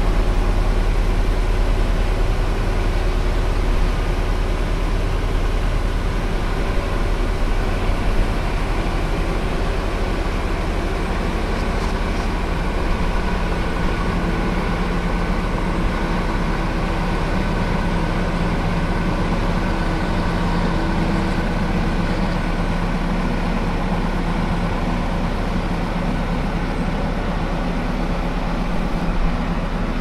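Heavy farm-machinery diesel engine running steadily, a continuous drone with a few constant hum tones and no change in speed.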